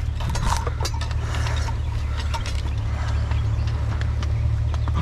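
Rattling and clinking of junk being handled in a dumpster, with scattered clicks over a steady low rumble.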